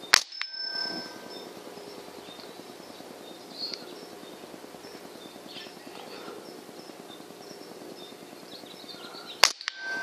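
Two shots from a .22 semi-auto PCP air rifle, about nine seconds apart, each followed almost at once by a short metallic ring as the pellet hits a 1-inch steel bell target.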